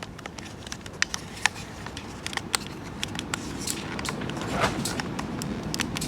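Plastic clicks and taps, irregular and sharp, with a low rustle of handling, as the window switch unit of a BMW is being fitted back together.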